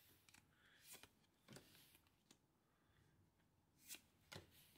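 Near silence with a few faint, soft clicks and rustles of trading cards being handled and flipped through.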